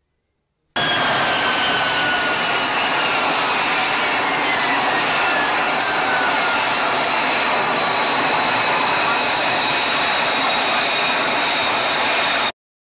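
F-35B fighter's jet engine running: a loud steady roar with high whines, one of them slowly falling in pitch. It starts just under a second in and cuts off abruptly near the end.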